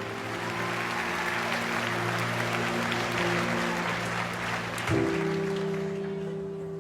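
Audience applauding over background music of held chords, which move to a new chord about five seconds in; the applause fades toward the end.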